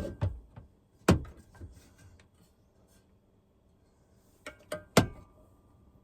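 Handling of tools and mounting hardware: a few sharp knocks and clinks, with a loud knock about a second in and another near the end, and a quieter stretch between.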